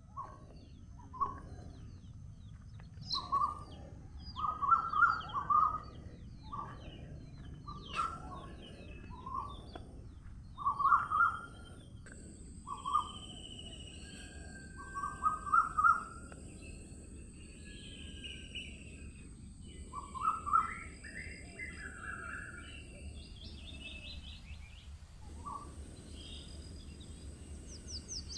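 Several songbirds singing over a low steady background, with short warbled phrases repeated every second or two and higher, thinner chirps between them. A faint steady high tone comes in about halfway through.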